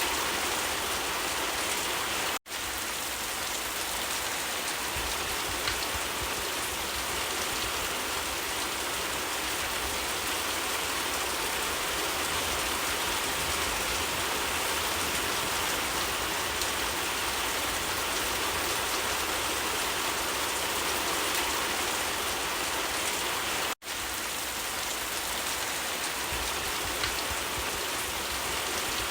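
Steady rain falling on leaves, an even patter with no changes in strength, broken twice by a brief dropout, about two seconds in and near the end.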